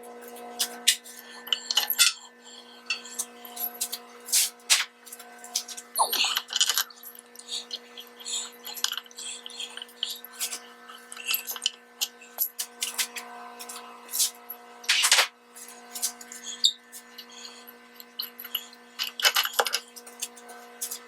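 Hand tools clinking, knocking and scraping on metal parts, in irregular strikes with a few louder knocks, over a steady background hum.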